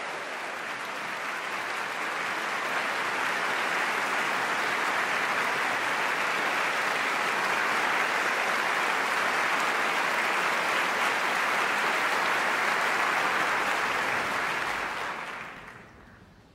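Opera-house audience applauding steadily, a dense clatter of many hands, fading out near the end.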